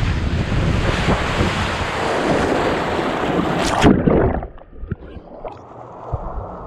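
Water rushing and wind buffeting a camera carried down an enclosed body water slide, ending in a loud splash into the pool about four seconds in. After the splash the sound drops to a muffled underwater gurgle, with the high end cut off.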